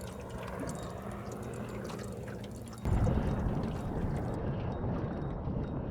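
Water trickling and dripping, over a steady low hum; about halfway through, a louder low rumble comes in suddenly and stays.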